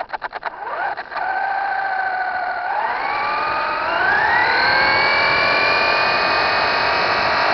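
Traxxas Slash 4x4 RC truck's electric motor and drivetrain whining, heard up close from a camera mounted on the truck. After a quick run of clicks, the whine starts about a second in, rises in pitch as the truck speeds up, then holds steady at speed.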